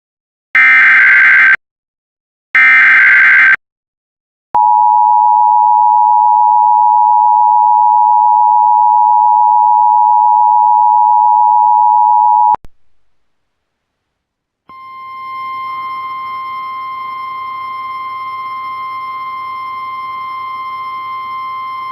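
Emergency Alert System activation: the last two bursts of the SAME digital header, each a buzzy data burst about a second long, then the EAS two-tone attention signal held steady for about eight seconds and cut off. After a short silence, a steady tone with a low hum and hiss under it begins.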